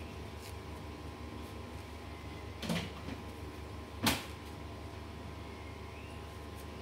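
Two short knocks, one about a third of the way in and a sharper, louder one about a second and a half later, over a steady low hum.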